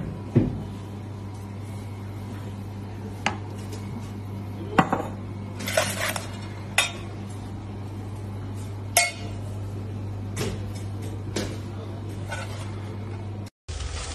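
Metal ladle and tongs clinking against a steel bowl and a plate: about eight short, scattered clinks over a steady low hum. The sound cuts off briefly near the end.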